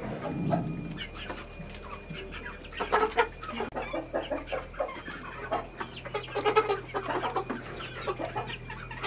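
A flock of young native (desi) chickens clucking, many short calls overlapping. The calls come thickest about three seconds in and again around seven seconds.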